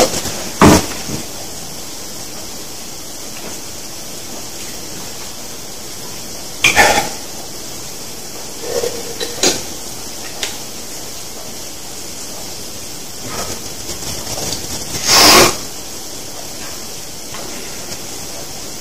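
An aluminium XS energy drink can being handled, with a few scattered clicks and knocks. About two-thirds of the way through comes a short, loud hiss as the can is cracked open. A steady faint hiss runs underneath.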